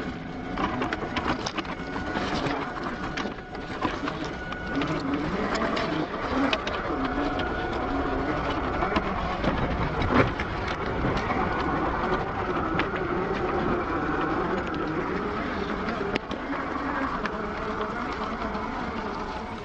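Traxxas TRX4 RC crawler's electric motor and geartrain whining, the pitch rising and falling with the throttle as it crawls over rocks, with stones clicking and knocking under the tyres; one louder knock about halfway through.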